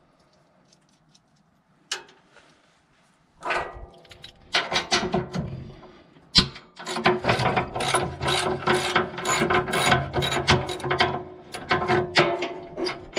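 Socket ratchet wrench clicking rapidly as it is worked back and forth to undo bolts. A single click comes about two seconds in, and the fast, loud clicking starts about three and a half seconds in.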